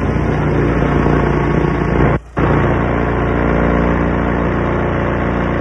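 Case 580B backhoe's Perkins diesel engine running steadily through its vertical exhaust stack, with a brief drop-out a little over two seconds in.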